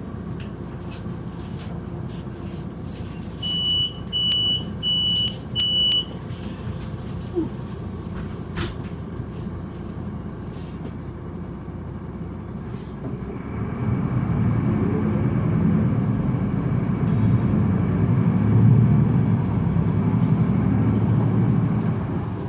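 Articulated Solaris Urbino 18 bus idling, with four short high beeps, the door-closing warning, a few seconds in. About halfway through, its DAF six-cylinder diesel comes under load and the sound swells and holds as the bus pulls away.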